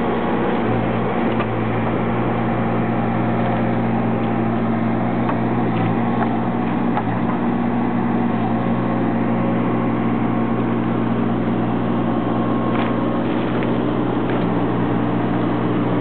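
Case 580 Super N backhoe loader's four-cylinder turbo diesel running at a steady speed while the backhoe boom and bucket are worked hydraulically.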